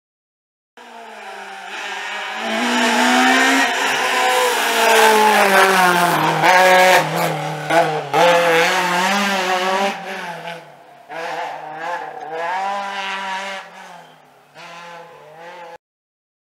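Citroën Saxo VTS rally car's four-cylinder engine revving hard through the gears, its pitch climbing and then dropping back again and again. It cuts in about a second in, is loudest in the middle, fades over the last few seconds and cuts off abruptly.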